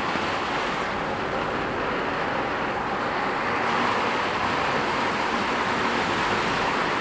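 Heavy rain pouring onto a wet paved street: a dense, steady hiss.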